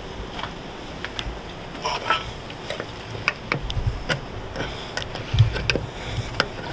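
Hand tools clinking and knocking against metal parts of a truck's engine bay, in scattered, irregular strokes with a few duller thumps in the middle and later on.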